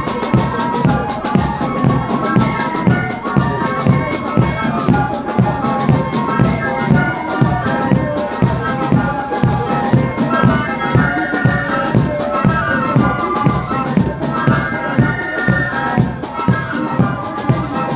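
Band music with a steady drum beat under a melody on wind instruments, played for a marching parade.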